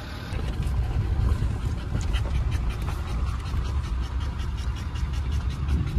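A dog panting quickly and evenly inside the cabin of a moving Land Rover Discovery 3, over the low rumble of the vehicle driving on a dirt track.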